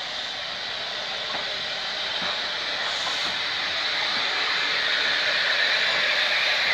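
Former Great Eastern Railway J15 0-6-0 steam locomotive No. 564 and its coaches passing close by: a steady hiss of steam over the rolling noise of wheels on rail, growing louder throughout.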